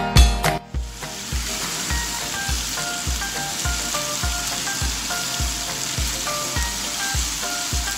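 Meat frying in a pan, a steady sizzling hiss, with quiet background music and a soft regular beat underneath; louder music drops away within the first second.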